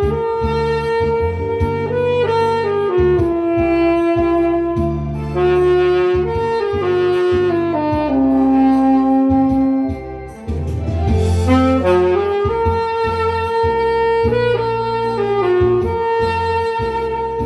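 Tenor saxophone playing a slow, lyrical melody in long held notes that step up and down, over a recorded instrumental backing with a low bass line. The music thins out briefly about ten seconds in before the saxophone comes back.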